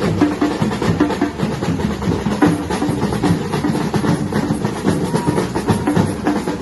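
Batucada samba percussion ensemble playing a dense, steady drum rhythm, with deep bass drums under many quick strikes.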